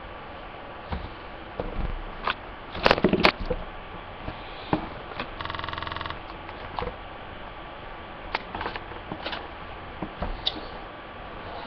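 Scattered clicks and knocks of objects being handled, with a loud clatter about three seconds in and a short buzzing tone lasting well under a second a little past five seconds in.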